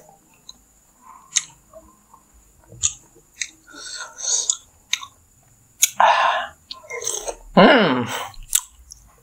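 Close-miked chewing of chicken satay in peanut sauce, with wet mouth noises and scattered sharp clicks. About seven and a half seconds in comes a loud short vocal sound from the eater, falling in pitch.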